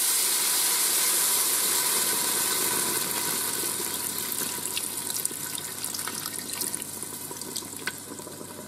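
Broth and vinegar poured in a thin stream into the hot pot of a Ninja Foodi just after searing, hissing and sizzling as it hits the hot pan. The hiss fades steadily as the liquid pools, with a few small pops in the second half.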